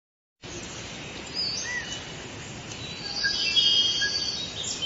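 Nature ambience of birds chirping and whistling in short rising and falling calls over a steady hiss.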